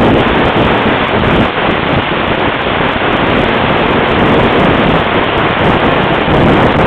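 Steady rush of wind buffeting a helmet-mounted microphone while riding a Honda 350 Rancher ATV, with the ATV's engine running underneath.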